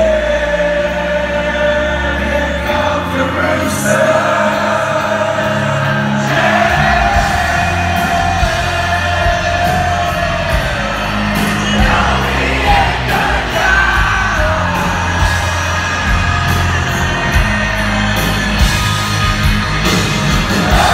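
Live rock band playing through a concert hall PA: electric guitars, bass and drums under a long held sung vocal line, recorded from within the audience.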